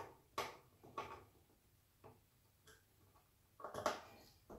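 Screwdriver tightening the screws of a metal mounting bracket into the back of a monitor: faint, even ticks about twice a second that stop after about a second, then a few light taps and handling noise near the end.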